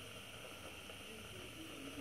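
Gas stove burner hissing faintly and steadily under a stainless-steel cezve of Turkish coffee as it heats.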